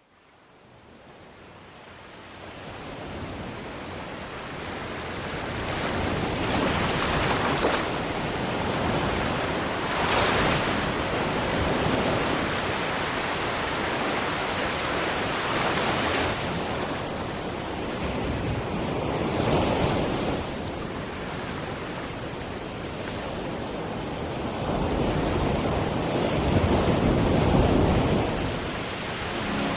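Sea waves washing and breaking, with wind buffeting the microphone. The sound fades in over the first few seconds, then swells and eases every few seconds as waves come in.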